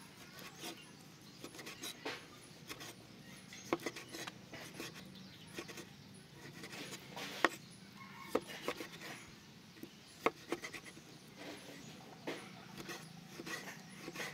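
Steel cleaver chopping sea snail meat on a wooden cutting board: irregular knocks of the blade striking the wood, the sharpest about halfway through.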